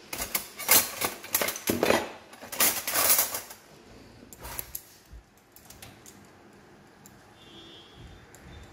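Stainless steel ladles, spatulas and spoons clattering and clinking as a hand rummages through a cutlery drawer. There is a quick run of metal clanks for about three seconds, then it goes much quieter.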